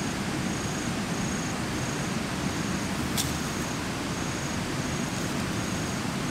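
Steady outdoor background noise with an insect chirping in a regular high-pitched pulse about one and a half times a second, and a single sharp click about three seconds in.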